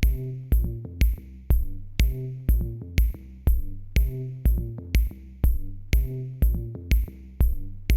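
Electronic music with a steady beat of about two hits a second, over sustained low bass notes.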